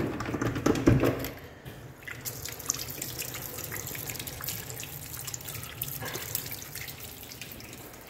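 Two clacks from a wall-mounted soap dispenser being pressed, about a second apart, then a tap running steadily with water splashing over hands into a washbasin.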